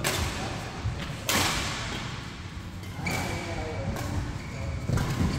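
Badminton rackets striking a shuttlecock in a rally, four sharp hits about a second and a half apart, each echoing briefly in the large hall.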